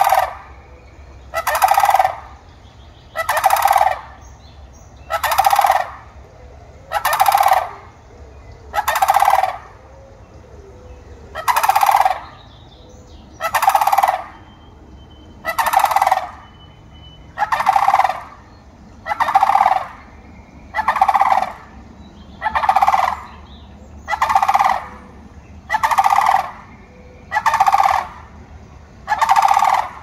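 Sandhill crane giving its rolling, rattling call over and over, one call about every two seconds.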